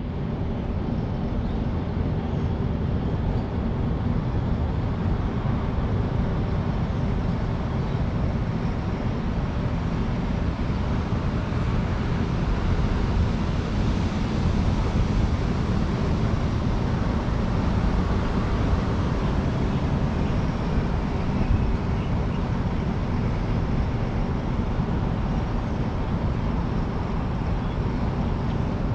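Steady outdoor city ambience: a low, even rumble of distant road traffic.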